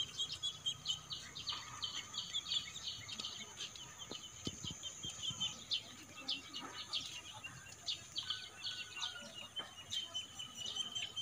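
Small birds chirping in quick, repeated high notes over a steady high-pitched tone.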